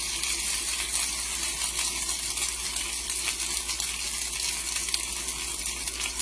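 Onions and pieces of ham sizzling in a frying pan: a steady crackling hiss.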